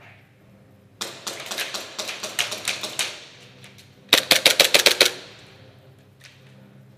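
Airsoft guns firing rapid strings of shots: about two seconds of quick cracks, then, about four seconds in, a louder run of some nine sharp cracks in a second.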